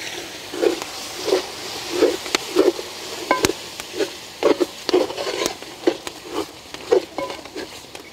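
A ladle stirring and scraping thick onion-tomato masala gravy, with water just added, around an aluminium pot: a run of short strokes about one and a half a second, over a light sizzle, with a few sharp clicks.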